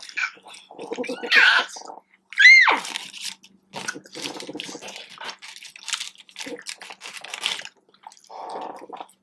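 Close-up eating sounds, with chewing, lip smacks and crinkling of a paper food wrapper. There are brief mumbled vocal sounds, and about two and a half seconds in a short, loud, high squeal slides sharply down in pitch.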